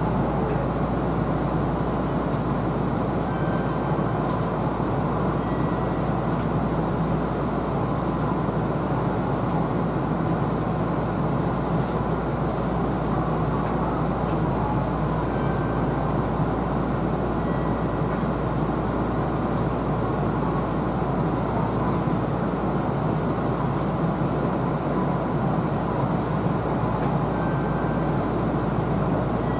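Steady hum and fan-like noise of a stationary Kintetsu Series 21 electric train's onboard equipment, heard inside the driver's cab.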